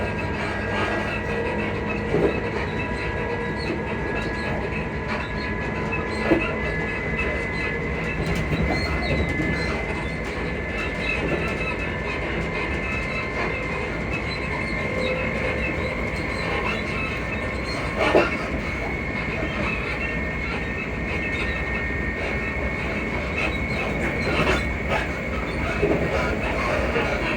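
Class 334 electric multiple unit running, heard from on board: a steady rumble with a steady high whine and rail clatter. Sharp knocks and squeaks from the suspension come a few times, loudest about 18 seconds in.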